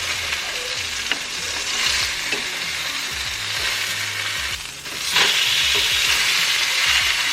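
Chicken frying in hot oil in a small pan, a steady sizzle with a few light clicks. It dips for a moment just before the halfway point, then comes back louder.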